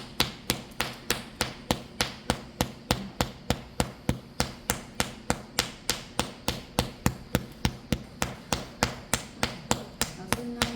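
Open-hand therapeutic slapping (paida) of the back-shu points on a person's back: rapid, even slaps at about four a second, kept up without a break.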